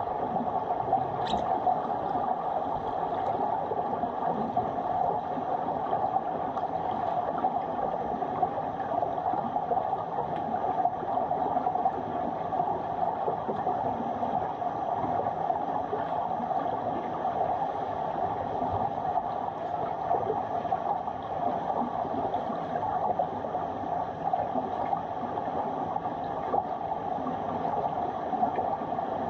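Steady underwater noise of a swimming pool as picked up by a submerged camera: an even, dense crackling rush, with one sharp click about a second in.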